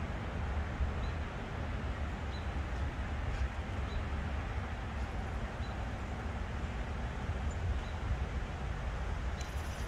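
Outdoor background: a steady low rumble with faint, short bird chirps every second or two.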